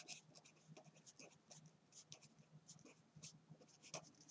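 Pen writing on a sheet of paper: faint, quick scratchy strokes in an uneven rhythm as a word is written out.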